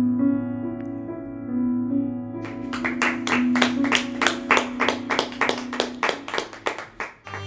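Piano playing the song's last slow, held notes, then from about two and a half seconds in a small group clapping, about four claps a second, that fades out near the end.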